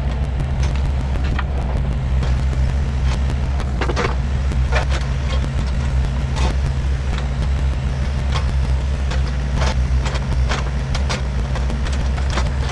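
Volvo EC35C mini excavator's diesel engine running steadily as it digs, with scattered sharp clicks and knocks from the bucket working the ground around a black locust stump, the loudest about four seconds in.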